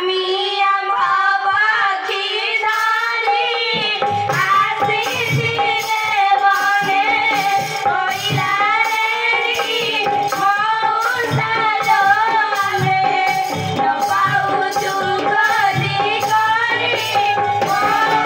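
Danda Nacha folk song: a singing voice over a steady held note, with drum beats joining about four seconds in.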